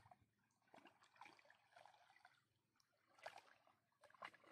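Faint sloshing and trickling of water around a person wading waist-deep, with a slightly louder splash a little after three seconds in.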